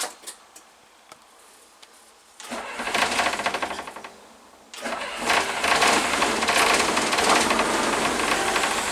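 A few light clicks, then a bus's diesel engine cranks on the starter for about two seconds, stops briefly, and catches on a second attempt, settling into a steady run. The fuel system is still losing its prime.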